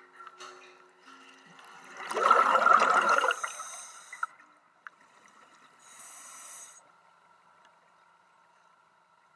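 Scuba diver's regulator underwater: a loud burst of exhaled bubbles about two seconds in, lasting about two seconds, then a shorter, softer hiss of an inhale around six seconds. A faint steady whine runs underneath.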